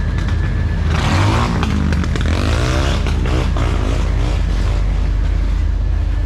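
A vehicle drives past close by from about a second in, its engine pitch sliding as it goes, over a steady low engine drone from machinery running throughout.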